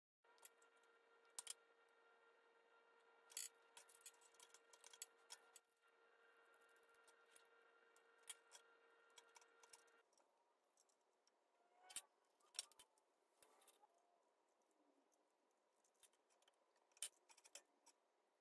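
Faint, scattered clicks and taps of small metal lamp-socket parts being handled and screwed together, over a low steady hum that stops about halfway through.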